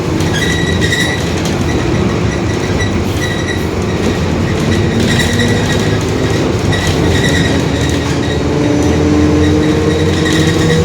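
Mercedes-Benz OF-1721 BlueTec 5 bus under way, its diesel engine and drivetrain running steadily under road noise, with the rear differential growling. Faint whining tones rise in pitch over the last few seconds as the bus gathers speed.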